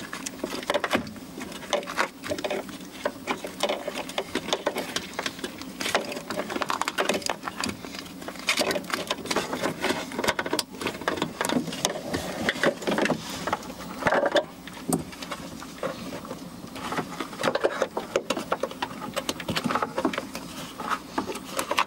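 Wiring and plastic connectors rustling and clicking against a pickup truck's door panel as hands feed the wire harness into the door cavity: rapid, irregular handling noise.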